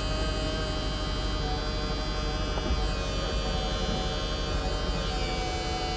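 Hydraulic pump of a Mercedes SLK55 (R171) Vario roof running with a steady whining hum as the roof closes, its tone shifting slightly a couple of times as the load changes.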